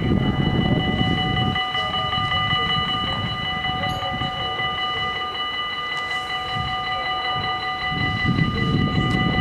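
Dutch level-crossing warning bells ringing steadily as the half-barriers lower, signalling an approaching train. A low rumble lies underneath, strongest at the start and near the end.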